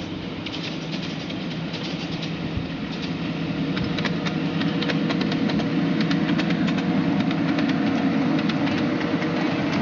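Ride-on miniature railway trains running past on the track, a steady rolling noise with many sharp wheel clicks over the rail joints, growing louder as the trains come closer.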